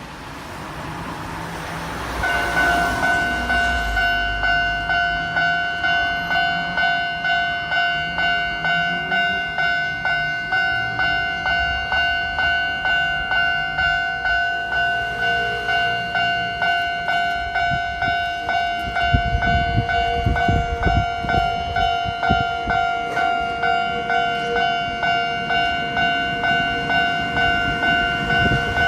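Level-crossing warning alarm on the Enoden street-running section, ringing in an even repeating beat of about one and a half strokes a second: it starts about two seconds in and keeps going. Partway through, a passing Enoden train adds a low rumble under the alarm.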